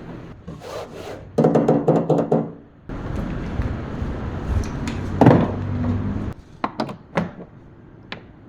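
Bass-heavy music from a JBL PartyBox 710 party speaker, in short pieces that cut off abruptly, followed by a few sharp knocks near the end.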